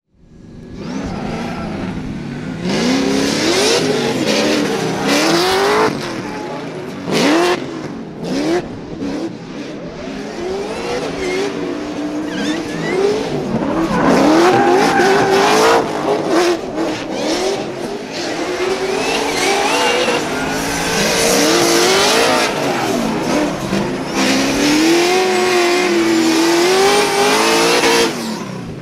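Two LS V8 drift cars, one supercharged and one turbocharged, driven hard in tandem. The engines rev up and down again and again, over the hiss and squeal of spinning, sliding tires.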